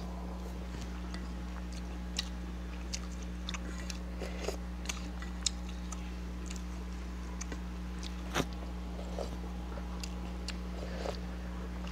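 Close-miked eating: a person chewing food, with scattered short wet clicks and smacks of the mouth, over a steady low hum.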